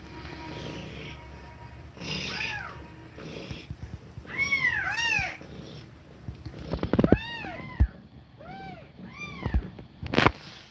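Young kittens mewing in a string of short, high calls that rise and fall in pitch, about nine in all, several of them close together. A sharp click comes near the end.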